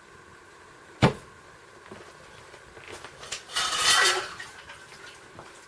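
Handling of stainless steel tumblers and a pan in a kitchen: a sharp knock about a second in, then a short clattering scrape a few seconds later.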